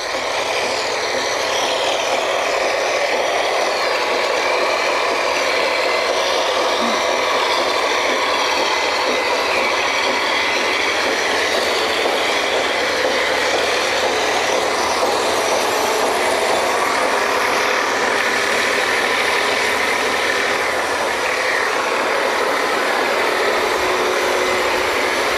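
Drilling-rig machinery running: a steady, loud mechanical drone with a thin whine held throughout, typical of the rig's engines and pumps at work.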